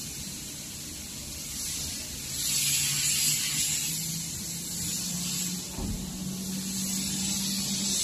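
Steady hiss of flowing air, louder in two stretches, with a low steady hum coming in about three seconds in and a brief low thump near the six-second mark.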